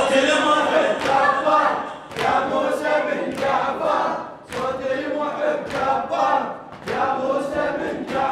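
A gathering of voices chanting a lamentation refrain together without instruments, in phrases with short breaks between them, over sharp slaps that recur about twice a second, in the beat of chest-beating (latm).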